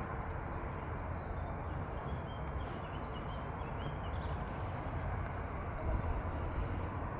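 Steady low rumble of jet airliner engines, with a few faint bird chirps a few seconds in.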